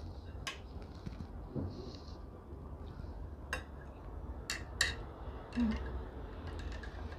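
Chopsticks and a metal spoon clinking against a ceramic bowl and scallop shells while eating: a few sharp clicks over a low steady hum.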